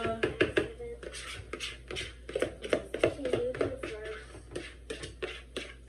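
Indistinct talking mixed with a run of quick light clicks and taps.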